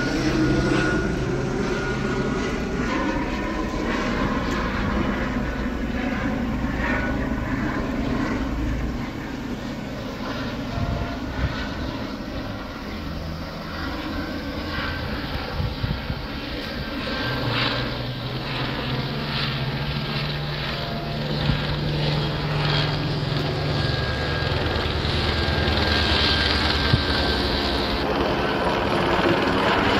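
Police helicopter circling low overhead: a steady drone of rotor and turbine engine, its tone slowly sweeping as it moves around the sky.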